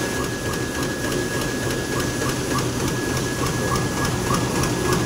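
Fully automatic litho laminator running at about 16,000 sheets an hour: a steady mechanical clatter of rollers and sheet feed, with a regular ticking and a thin steady high whine.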